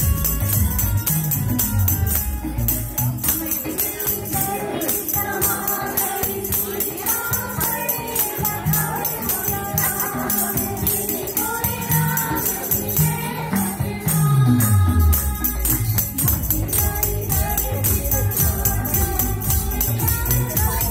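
Music for the dance: an Indian folk or devotional song with singing over a steady beat and jingling percussion. A deep bass note slides downward about two-thirds of the way through.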